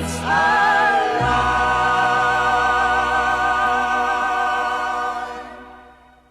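Closing bars of a pop song: voices and backing choir hold one long final chord with vibrato over the band, fading out near the end.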